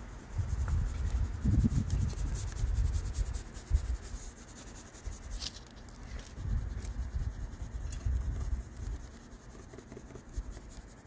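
An orange colored pencil scratching back and forth across sketchbook paper, shading in diagonal strokes. A low bumping runs under the strokes and is strongest in the first few seconds.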